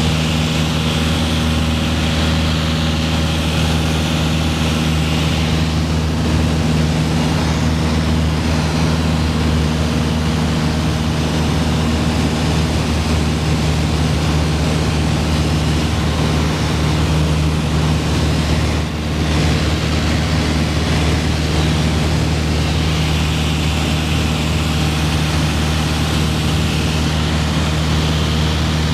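Piper PA-28-161's four-cylinder Lycoming O-320 engine and propeller running steadily in flight, heard inside the cabin, with one brief dip in level about two-thirds of the way through.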